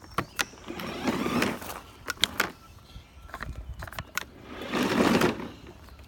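Clicks and rattles of a battery-powered lawn mower's controls being pushed and pulled, with two longer noises of about a second each; the mower does not start.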